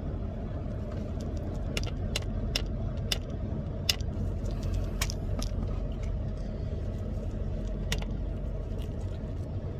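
Vehicle engine idling with a steady low rumble, heard from inside the truck, with about seven sharp light clicks scattered through it.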